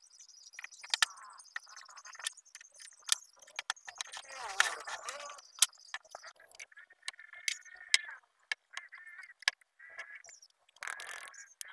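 INGCO one-handed quick-release bar clamps being handled and released on a wooden workbench: a run of sharp plastic clicks and clatter from the triggers and bars, with short creaking sounds in the second half.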